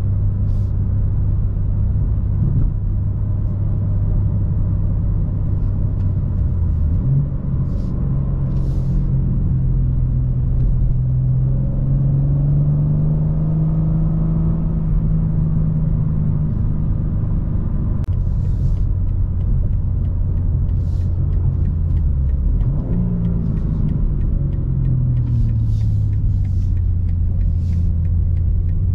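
2023 BMW M2's twin-turbo inline-six heard from inside the cabin while driving in Sport Plus mode, partly piped in through the car's speakers. A steady drone that steps up in pitch several seconds in, climbs slowly under acceleration, then falls away near the end.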